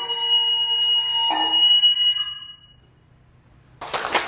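Nōkan, the Noh bamboo flute, holding a high, steady note, with a fresh phrase entering about a second and a half in; the playing ends about two seconds in and fades into a brief hush. Applause breaks out near the end.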